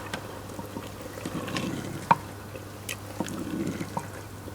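Aubergine and zucchini curry still simmering in a clay pot off the fire, with soft wet bubbling and a few scattered sharp pops. The pot's retained heat keeps it cooking.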